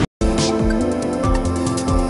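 A moment of silence, then electronic background music with a steady beat begins.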